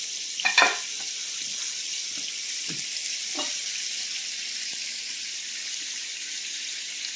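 A metal pan clatters as it is lifted off a wooden counter about half a second in, followed by a few light knocks and a damp rag wiping the countertop, over a steady hiss.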